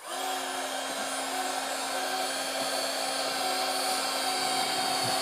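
Ryobi R18HG-0 18 V cordless heat gun switching on and running steadily: an even rush of fan air with a steady hum beneath it.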